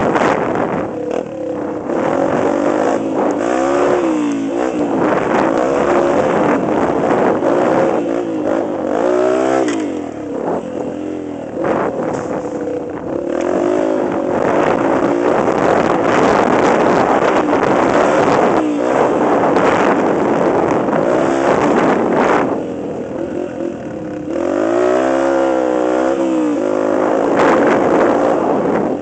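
Small off-road vehicle engine running under load, its revs rising and falling again and again as it rides over sand, with wind rushing over the helmet-mounted microphone.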